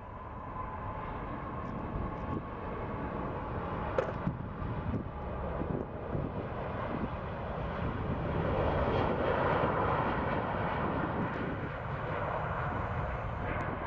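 Emirates Airbus A380-800's four jet engines during its takeoff roll: a deep, rumbling jet noise that builds steadily and is loudest about two-thirds of the way through, with a thin steady whine in the first few seconds. A sharp click about four seconds in.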